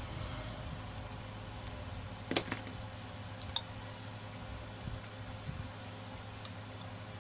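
A few sharp clicks and taps from handling a blender armature and its copper winding wire, two close together about two and a half seconds in, two more a second later and one near the end, over a steady low hum.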